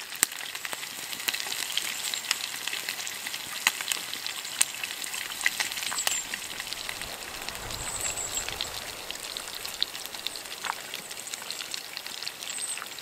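Whole brook trout and its roe frying in a frying pan over a campfire: a steady sizzle with frequent sharp pops and crackles.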